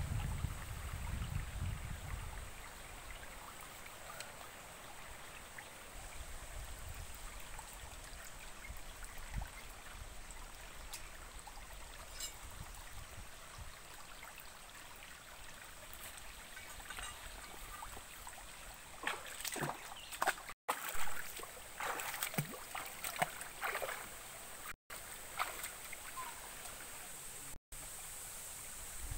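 Shallow forest stream trickling steadily over rocks, with a low rumble in the first couple of seconds. About two-thirds of the way through comes a short run of rustling and crackling in leafy undergrowth, and the sound cuts out for an instant a few times.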